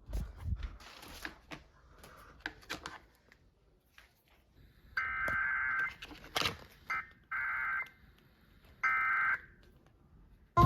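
Weather radio receiving an alert: scattered handling knocks at first, then from about five seconds in, four short buzzy bursts of the alert's data header. A loud knock comes at the very end.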